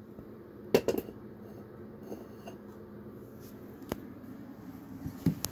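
Soft rustling and handling noise with a few sharp clicks, the loudest about three-quarters of a second in, over a low steady room hum.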